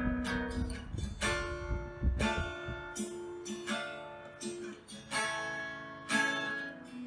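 Acoustic guitar playing the song's instrumental break, a chord or arpeggio struck about once a second and left to ring. For the first two seconds or so an uneven low rumble lies under it, the unwanted noise of an electric fan on the microphone.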